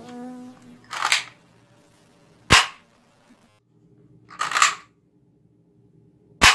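Two sharp, gunshot-like pops about four seconds apart, each coming a second or two after a short hissing whoosh. They go with toy-gun play.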